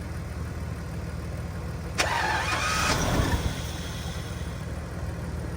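1995 BMW 750iL's V12 being cranked by its starter: the starter engages with a click about two seconds in and turns the engine over for about a second and a half without it catching. A steady low hum runs underneath.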